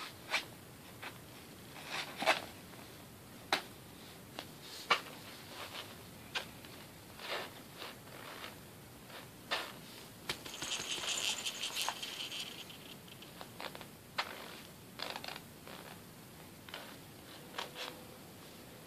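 Scattered short rustles, scrapes and soft clicks of fabric and handling, with one longer hissing rustle about eleven seconds in.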